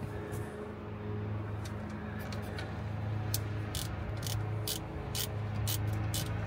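A ratchet clicking in short strokes, about two clicks a second from a second and a half in, loosening the hose clamp on the engine's fresh-water intake hose. A steady low hum runs underneath.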